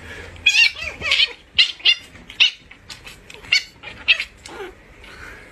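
French bulldog puppies squealing and yipping while they play-fight: a quick string of short, high-pitched cries.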